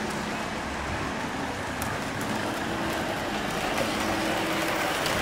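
Lionel O-gauge model trains running on three-rail track: a steady rolling rumble with a faint motor hum and a few light clicks.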